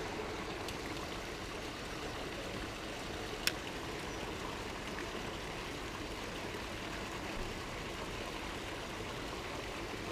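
Steady rush of a trout stream's running water, even throughout, with one sharp click about three and a half seconds in.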